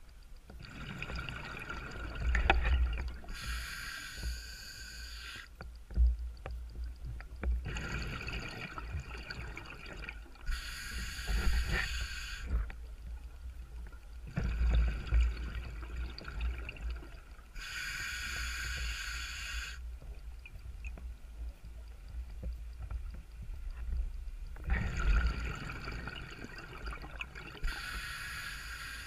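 Scuba diver breathing underwater through a regulator: four slow breath cycles, each a hiss of inhalation through the demand valve and a burble of exhaled bubbles.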